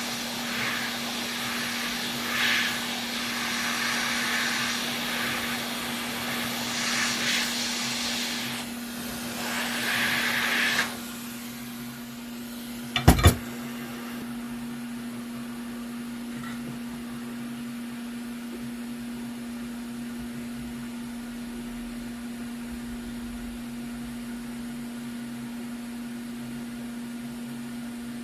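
Air rushing in uneven surges that cut off suddenly about eleven seconds in, followed by two sharp clicks and then a steady low hum.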